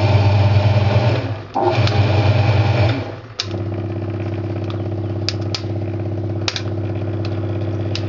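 Hoover 200M top-loading washing machine switched to spin: a steady electric motor and pump hum that breaks off briefly twice in the first three seconds, then settles to a steadier, slightly quieter hum. The drum is not spinning, which the owner puts down to the float (pressure) switch still signalling water in the tub.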